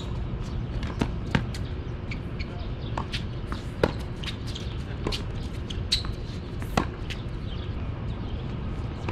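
Tennis rally on a hard court: sharp knocks of racket strings hitting the ball and the ball bouncing, with the loudest hits about every three seconds, over a steady low rumble.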